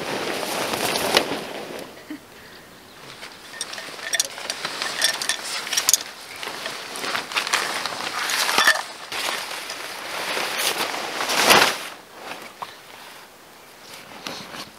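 Camping tent being taken down and packed: nylon tent fabric rustling and swishing as it is handled and folded, with metal tent pegs clinking now and then.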